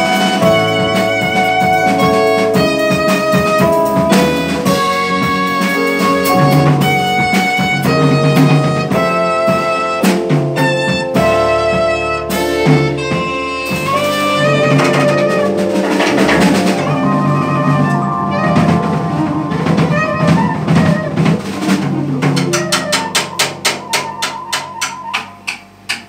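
Live jazz quartet of saxophone, piano, electric bass and drum kit playing, with held melody notes over the rhythm section. In the last few seconds the drums play a run of quick, evenly spaced hits that cuts off suddenly as the piece ends.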